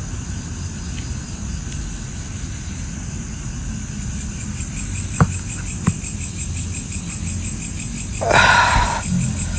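Night insects, crickets, trilling in a steady high pulsing chorus over a low rumble. Two sharp clicks about five and six seconds in, and a loud brief burst of rustling noise near the end.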